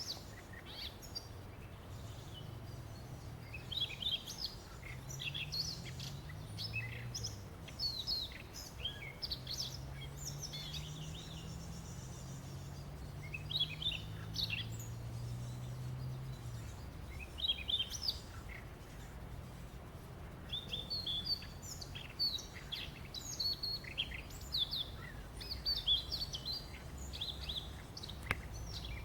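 Several songbirds calling and singing in short, scattered chirps and brief trills, some overlapping. A low hum sits under them for several seconds in the middle.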